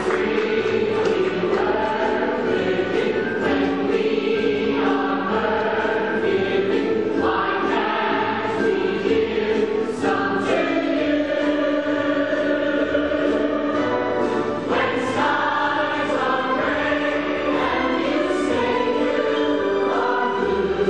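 Musical-theatre finale: the full cast singing together in chorus over the theatre orchestra, steady and full throughout.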